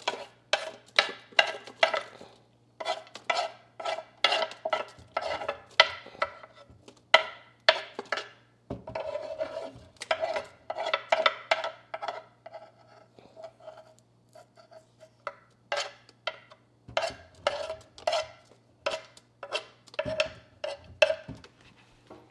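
Knife dicing vegetables on a cutting board: a run of quick chopping strikes about two or three a second, with a few short pauses.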